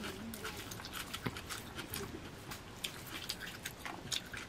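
Eating sounds close to the microphone: fingers mixing and squeezing chicken biryani rice on a banana leaf, with chewing and mouth smacks, as irregular soft clicks several times a second.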